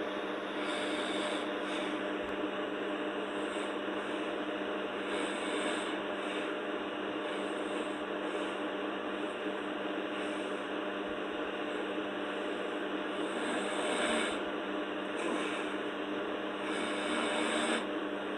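Sleeping girl breathing noisily, a hissy, rasping breath swelling about every two and a half seconds over a steady electrical hum.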